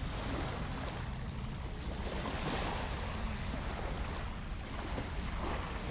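Small waves washing up a sandy beach, a steady surf hiss that swells gently a couple of times, with wind rumbling on the microphone.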